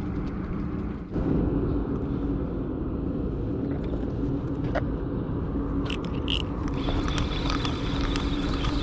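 Steady low outdoor rumble with a constant low hum under it, and a few light clicks about five and six seconds in.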